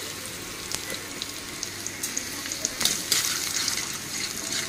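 Chopped garlic sizzling and crackling in hot oil in a metal kadai, stirred with a metal spatula. The sizzle grows louder and busier about three seconds in.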